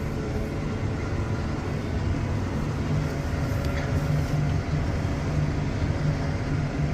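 A vehicle engine running steadily, a constant low hum with no change in speed.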